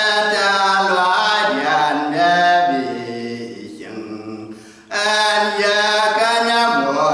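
A man singing unaccompanied in a chant-like style, holding long notes that slide between pitches. The singing drops softer in the middle and comes back strongly about five seconds in.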